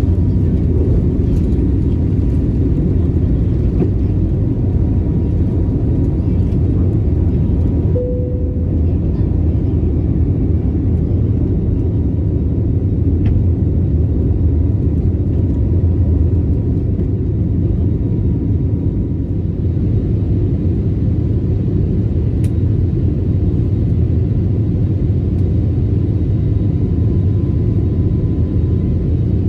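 Steady low rumble of jet engines and airflow inside an Airbus A321neo passenger cabin, with a faint steady whine above it. The higher hiss thins out abruptly about eight seconds in.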